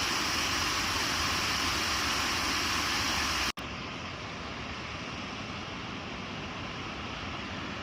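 Steady rushing wind noise on the microphone, dropping suddenly to a quieter level about three and a half seconds in.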